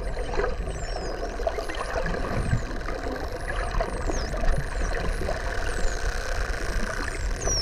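Bottlenose dolphins whistling underwater: several short, high whistles that glide up and down in pitch. They sit over a louder steady low drone of underwater noise.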